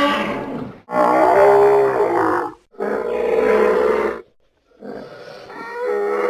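Designed dinosaur calls for the fictional hadrosaur hybrid Paramoloch, mixed from layered animal recordings such as moose, cow moos and warped goose honks. Four pitched calls follow one another with brief gaps; the last starts quietly about five seconds in and swells into a louder call.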